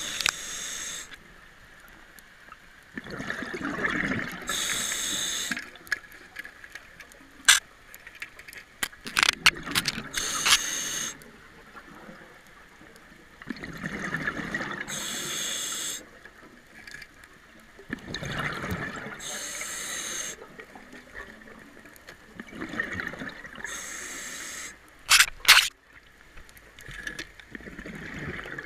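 Scuba diver breathing through a regulator underwater: a hiss of each breath and a rush of exhaled bubbles, repeating about every five seconds. A few sharp knocks or clicks come in between, the loudest a quick double near the end.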